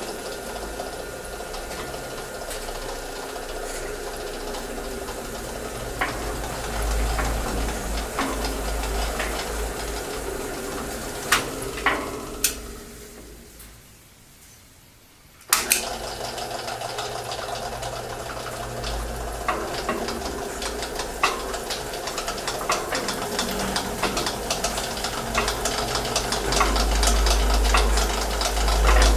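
Electric motor of a homemade cement mixer running, turning the steel drum through belts and pulleys with a steady clatter of small ticks and knocks. About twelve seconds in it is switched off and runs down to quiet, then is switched back on with a click about three seconds later.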